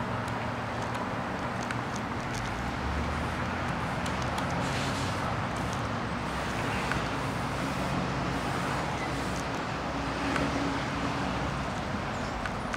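Steady road traffic noise, a continuous rumble and hiss of passing vehicles with a low engine hum, and a few faint clicks.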